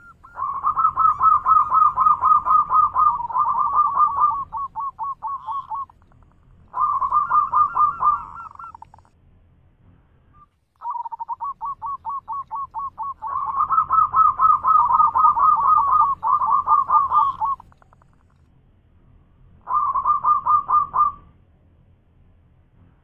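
Zebra dove (perkutut) singing its loud song: four runs of quick, rolling coos with short pauses between, the longest lasting about seven seconds.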